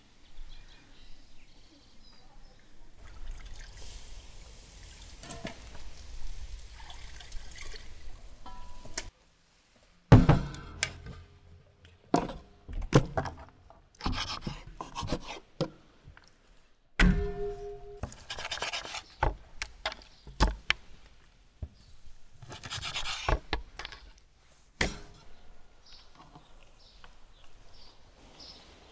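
Raw whole chickens being cut up with large knives on wooden boards: sharp chops that knock on the wood at irregular intervals, with the wet rubbing of the meat being handled in between. This starts after about nine seconds of a quiet outdoor background with a low rumble.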